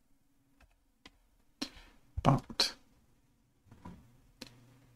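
Scattered single clicks from a computer keyboard. About a second and a half to three seconds in come a few short, louder breathy noises, all over a faint steady hum.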